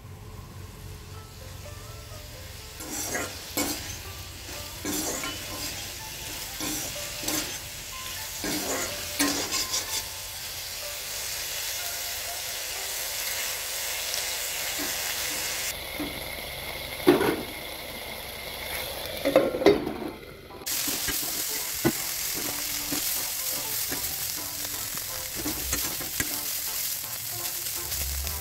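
Silkworm pupae and sliced onion sizzling in oil in a wok, while a perforated skimmer scrapes and knocks against the pan as they are stirred. There are a few louder knocks of the skimmer about two-thirds of the way in.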